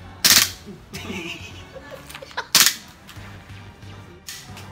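Airsoft pistol firing single shots: sharp cracks about two seconds apart, the last one quieter.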